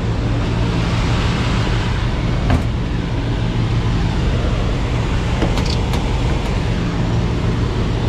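Rooftop packaged air-conditioning unit running in cooling: a steady low hum with the rush of its fans moving air. A sharp click about two and a half seconds in, and a few light ticks near six seconds.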